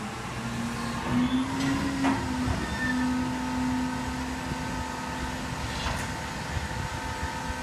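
Automated recycling garbage truck running: a steady engine and hydraulic drone that climbs in pitch in the first second or so, then holds. A few knocks and clanks come around one to two seconds in, and a sharp click near six seconds.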